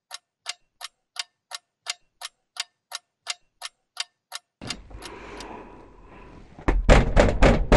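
Clock-ticking sound effect, about three sharp ticks a second, over a countdown. It stops about four and a half seconds in, giving way to outdoor background noise, then a quick run of loud thumps and bangs from a plastic wheelie bin near the end.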